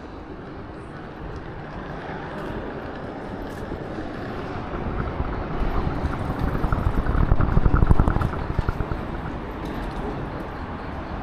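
A road vehicle passing close by: its noise builds, peaks with a fast pulsing about seven to eight seconds in, then fades away.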